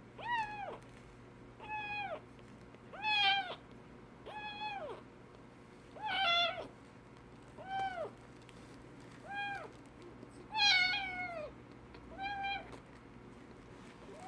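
Young kitten mewing over and over, about nine short high calls each falling off at the end, coming roughly every second and a half. The owner takes this crying, made while it kneads, for a kitten calling for its mother.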